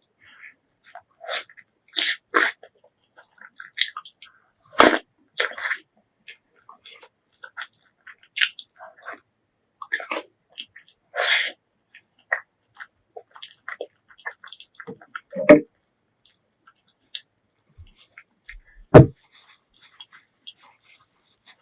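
Close-miked eating sounds: irregular wet chewing and mouth noises, with a handful of louder sudden mouth sounds scattered through.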